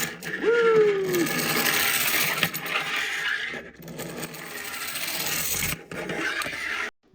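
Tin wind-up airplane by Tipp & Co. running on its clockwork motor, giving a loud, continuous rattling whir. The whir breaks off briefly a few times and stops abruptly just before the end. A short squeal falling in pitch comes about half a second in.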